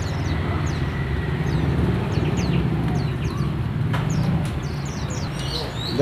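Small caged songbirds giving many short, high, downward-sliding chirps over a steady low hum, with a single sharp click about four seconds in.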